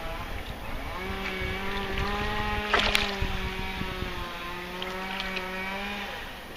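An engine running with a steady droning hum. It comes in about a second in and drops away near the end, with a short sharp click about three seconds in.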